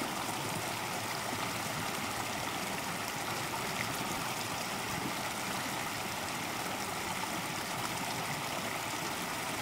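A creek running, a steady flow of water with no change.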